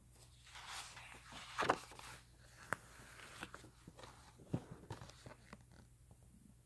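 Faint rustling and irregular clicks and taps from a handheld phone being carried by someone walking, footsteps among them. The loudest taps come about a second and a half in and again just past halfway.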